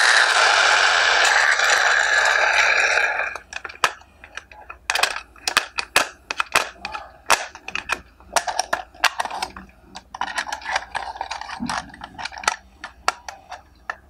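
Hard plastic toy truck being handled: a steady rushing noise for about the first three seconds, then it stops, followed by irregular clicks and knocks of plastic.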